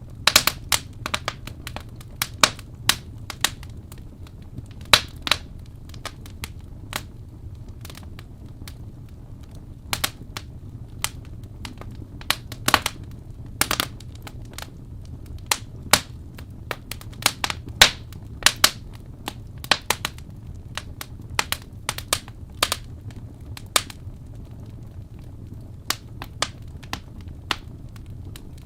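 Wood fire in a fireplace crackling, with sharp, irregular pops over a steady low rumble.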